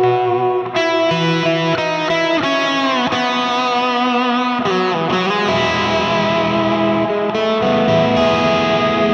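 Electric guitar played through a Line 6 POD HD500X multi-effects unit on an ambient worship patch: sustained notes and chords ring and overlap under long delay and reverb, and a couple of notes slide down in pitch about three and five seconds in.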